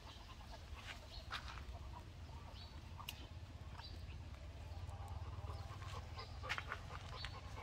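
Faint, short animal calls and squeaks scattered through, over a low steady rumble.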